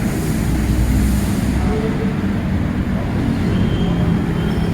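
Busy highway traffic passing: a steady rumble of engines and tyre noise from cars and other vehicles.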